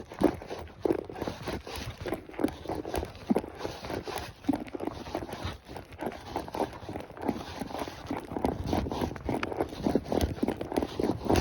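Hooves of a ridden horse striking the ground in a quick, continuous run of knocks.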